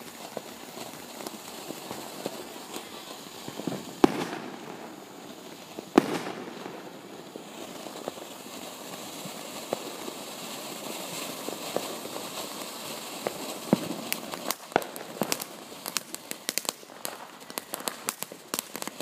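Ground fountain fireworks spraying sparks with a steady hissing crackle, broken by two sharp, loud bangs about four and six seconds in. In the last few seconds the crackling turns into a fast, dense run of sharp pops.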